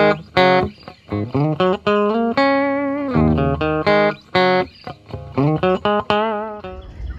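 Guitar music: a melody of single plucked notes, some held with vibrato, ending a little before the close.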